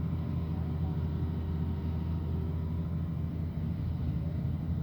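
Excavator diesel engine running steadily at a constant speed, a low even drone with no change in pitch.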